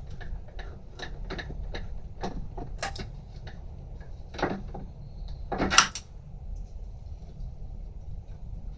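Metal hand tools clinking and knocking against engine parts while a bolt is undone, in irregular single clicks with a louder clank about six seconds in.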